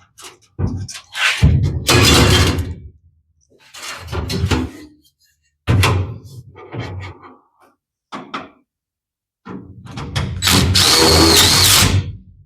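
Sheet-metal pieces clunking and knocking as they are handled and set in place, in several separate bursts. A longer, louder clatter near the end carries a high whine that dips in pitch.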